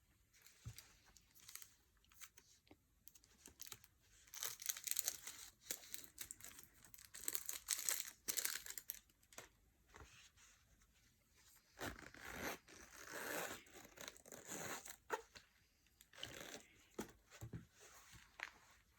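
Packaging being torn open and crinkled by hand during an unboxing, in irregular rustling spells, loudest about four to nine seconds in and again around twelve to fifteen.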